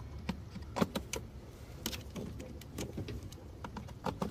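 Scattered clicks and clatter of a portable jump starter's cable clamps being unclipped from the car's jump-start terminals and handled, over a low steady rumble.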